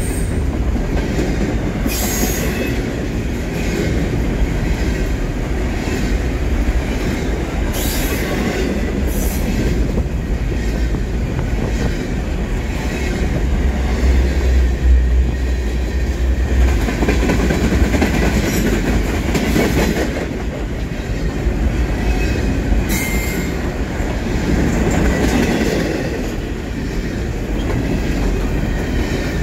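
Double-stack container freight train rolling past close by: a steady, loud rumble of steel wheels on the rails. A few brief high-pitched wheel squeals come through, about two seconds in, around eight and nine seconds, and again near twenty-three seconds.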